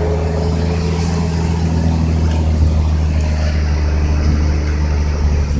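Heavy truck's diesel engine running steadily with a deep, even low hum.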